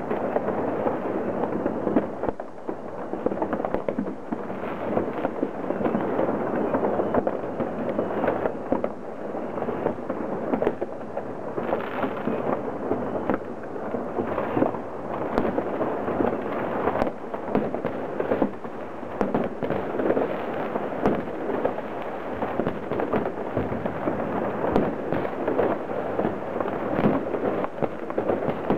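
Many fireworks and firecrackers going off at once: a continuous crackling din with sharp bangs and cracks all through.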